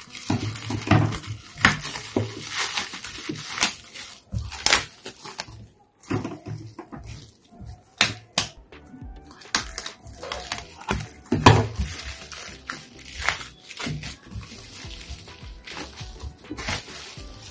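Plastic wrapping film crinkling and rustling as it is cut open with scissors and pulled off a parcel of books, with cardboard packing sheets being handled. The crackles are irregular and come in bursts, with a short pause about six seconds in.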